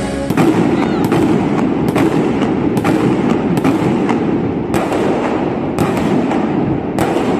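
Indoor fireworks bursting inside a domed baseball stadium: about eight sharp bangs at uneven intervals, roughly one a second, over a dense steady noise.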